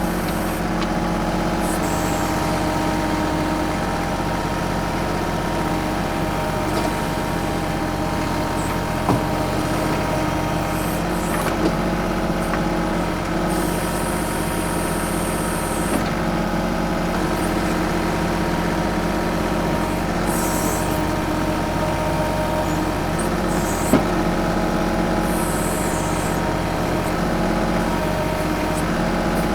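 TYM 2515H compact tractor's diesel engine running steadily while it works the backhoe at a stump, with a few brief sharp knocks and short hissy patches over the engine.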